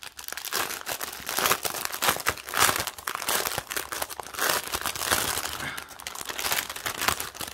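Clear plastic bag crinkling and crackling unevenly as hands handle and open it, the packets of diamond-painting drills inside shifting with it.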